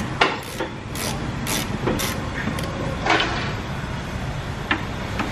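Sharp metallic clicks roughly every half second, then two more near the end, as a long ratchet wrench is worked on the brake caliper bracket bolts. A steady low shop hum runs underneath.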